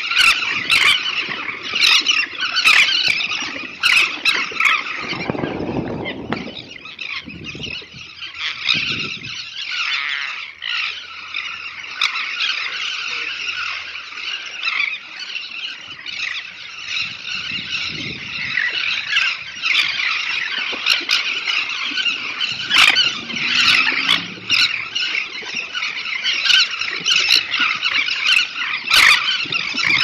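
Breeding colony of elegant terns calling en masse: a continuous din of many overlapping high, shrill calls from hundreds of birds at once, thinning a little about eight seconds in.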